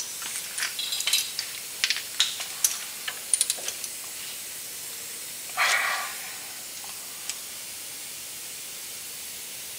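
Light metallic clicks and clinks of metal parts and hand tools being handled at a car's front disc-brake caliper bracket, over a steady hiss. One short, louder rasp comes about six seconds in.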